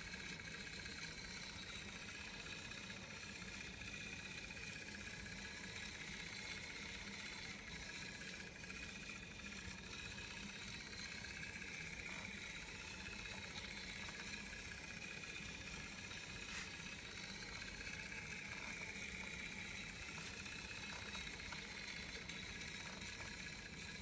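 Steady whine and low hum of the small electric motors on a flexible-spacecraft testbed, turning the hub and an unbalanced rotor on board. The whine wavers slightly in pitch.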